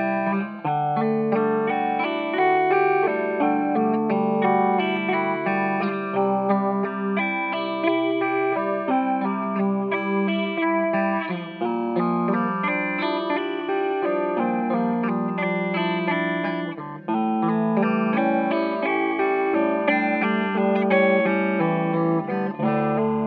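Electric guitar, a Gibson Firebird VII, played through a Subdecay Starlight Flanger V2 pedal into an Orange AD30 amp: a continuous run of picked notes and chords in a lightly driven, effected tone, with one short break about two-thirds of the way through.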